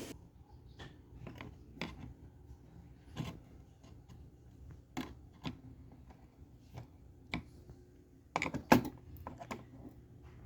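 Hands working with small hard parts: scattered light clicks and knocks, with a louder cluster of knocks about eight and a half seconds in.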